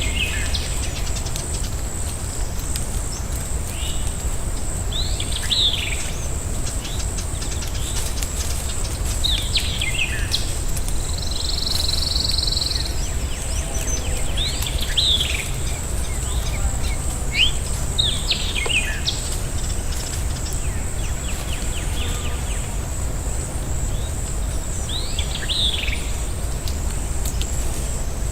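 Forest ambience: a bird repeating a short falling call every four to five seconds over a steady high-pitched whine and a constant low rumble, with a brief buzz in the middle.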